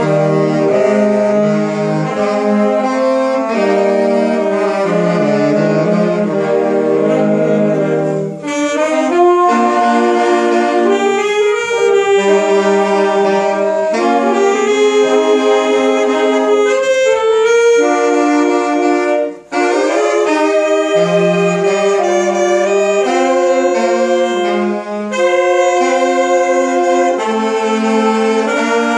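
Saxophone ensemble playing a Christmas medley in several-part harmony, with short breaks between phrases about eight and nineteen seconds in.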